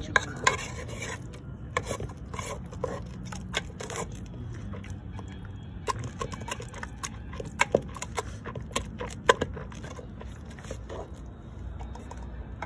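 Irregular clicks, knocks and scraping from cooking utensils and food being worked by hand, over a steady low hum.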